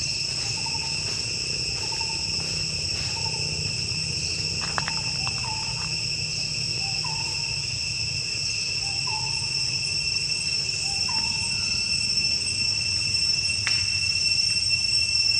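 Steady, high-pitched drone of insects in the forest, holding several even tones, with a bird repeating a short hooting note about every one to two seconds.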